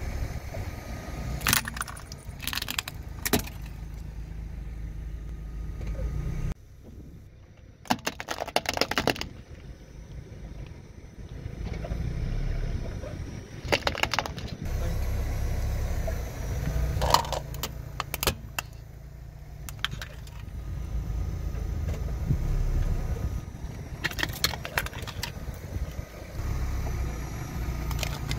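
Car tyre rolling over hard plastic toys, the plastic cracking and crunching in several short sharp bursts over the low sound of the slowly moving car.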